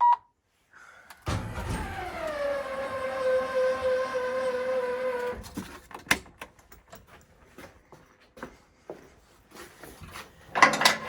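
A short electronic beep as the Kubota RTV 900's ignition is switched on. About a second later an electric motor on the machine runs for about four seconds, its whine falling in pitch as it takes up and then holding steady, before it cuts off suddenly. Clicks and knocks of handling follow.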